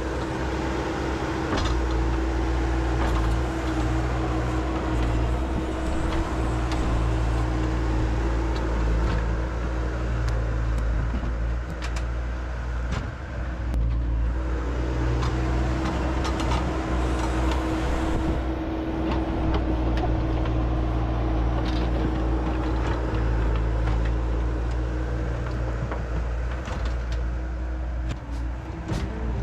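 Diesel engine of heavy equipment running steadily under working load, with a constant tone held over the engine drone.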